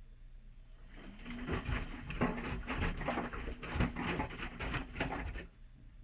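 Whirlpool washing machine drum turning during the main wash: the motor hums while the wet laundry and water slosh and tumble for a few seconds. It starts about a second in and stops near the end, the usual tumble-and-pause pattern of a wash cycle.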